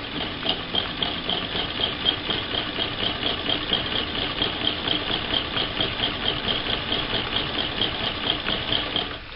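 1937 Frister and Rossmann transverse shuttle sewing machine stitching two strips of cotton fabric, running at a steady pace with an even clatter of about three to four stitches a second, then stopping just before the end.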